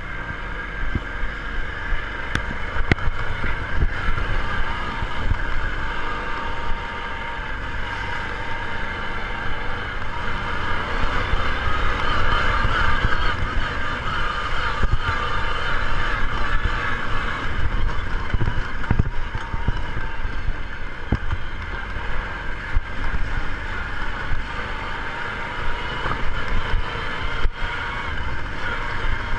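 ATV engine running steadily while riding, with low rumble and occasional knocks from the rough ground.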